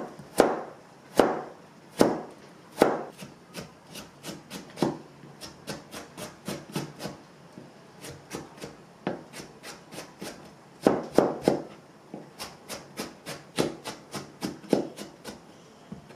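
Chef's knife slicing a carrot into thin matchsticks on a plastic cutting board: a run of sharp knocks of the blade on the board, one to three a second, heaviest in the first few seconds and again about eleven seconds in.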